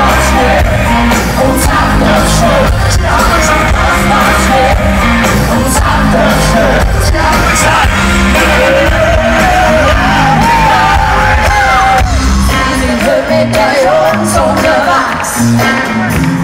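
Live rock band with loud male vocals over electric bass, guitar and drums, heard from the crowd in a large hall. The bass and kick drum drop away for a few seconds about three-quarters through, leaving mostly the voices, then come back.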